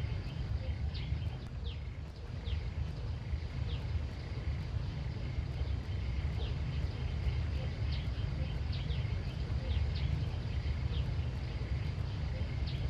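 Outdoor rural ambience: a steady low rumble under short, high chirps that come irregularly, one or two a second, over a faint steady high drone.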